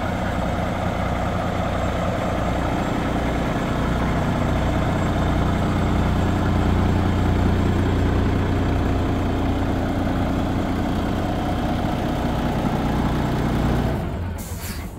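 Kenworth T680 semi truck's diesel engine idling steadily with a low, even throb. Near the end the sound drops away abruptly and there is a single click.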